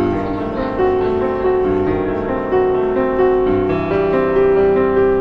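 Background music led by piano, held notes changing about once a second.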